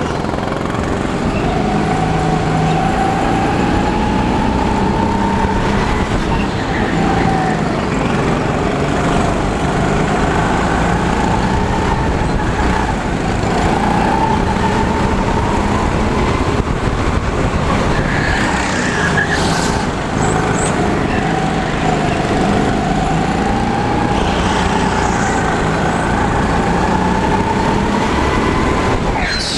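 Indoor rental go-kart running flat out on board, its motor note repeatedly climbing and dropping as it accelerates and slows.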